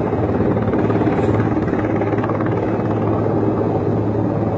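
Helicopter flying low, its rotor chopping steadily over a deep, even hum.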